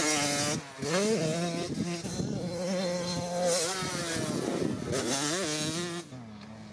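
Minicross motorcycle engine revving hard and easing off several times as the bike rides the track, its pitch rising and falling with each throttle change. About six seconds in it drops to a quieter, more distant running.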